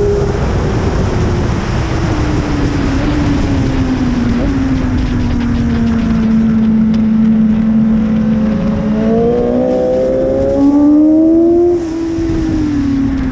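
BMW S1000RR inline-four sportbike engine at track speed. The engine note winds down over the first few seconds, holds steady, then climbs again about two-thirds of the way in and drops away near the end, with heavy wind rush underneath throughout.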